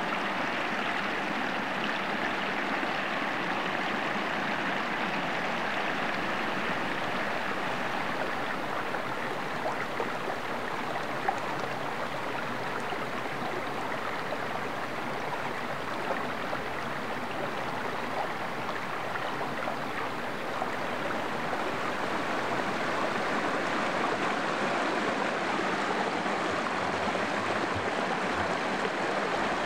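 Small woodland stream running over rocks and a low cascade: a steady rushing babble of water that grows a little louder in the last few seconds.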